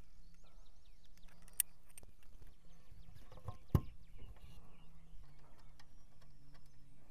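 Small clicks and light scraping of a metal screw, bracket and safety ring arm being lined up and turned by hand, with a sharper click about a second and a half in and a louder one near four seconds in, over a low steady hum.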